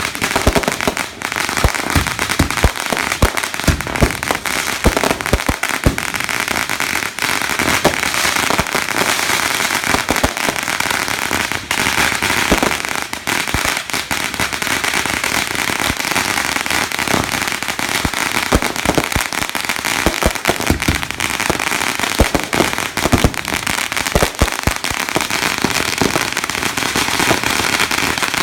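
Fireworks crackling and popping without pause: a dense stream of sharp cracks and small bangs over a steady hiss.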